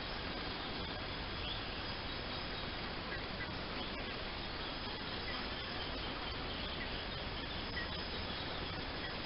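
Steady outdoor background noise with a few faint, short high chirps scattered through it; no loud ibis call stands out.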